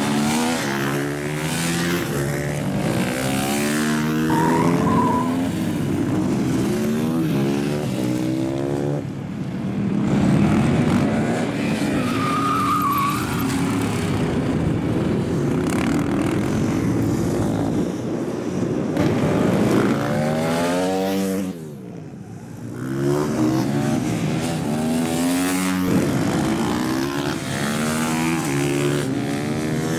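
Supermoto racing motorcycle engines revving up through the gears and dropping in pitch as the riders shift and brake for corners. Several bikes pass one after another, sometimes overlapping, with a brief lull about two-thirds of the way through.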